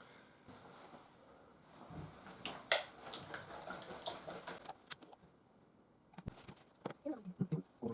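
Small clicks and taps from objects being handled, loudest once about three seconds in. Near the end comes a young child's wordless voice in short sliding sounds.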